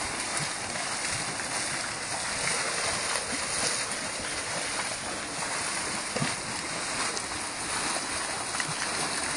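Sulphur Caldron, a Yellowstone sulfur hot spring, churning and venting steam: a steady rushing, bubbling sound like a big pot boiling over.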